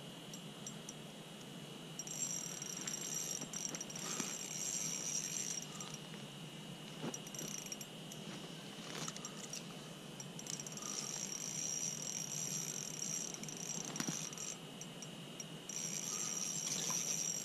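Spinning reel being cranked in bouts to bring a hooked fish up through an ice hole: a fine, high whir from the reel that starts and stops every few seconds, with a few light clicks.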